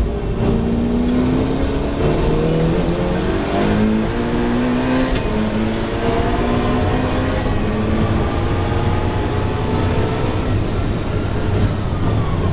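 Ferrari 488 Challenge race car's twin-turbo V8 engine under hard driving, its pitch climbing and dropping repeatedly through acceleration and gear changes. A thin high whine runs through the middle of the stretch.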